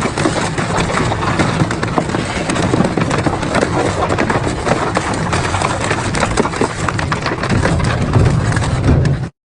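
Double-shaft metal shredder running under load, crunching and tearing metal with a dense run of cracks and snaps over a low drone from its drive. The sound cuts off suddenly near the end.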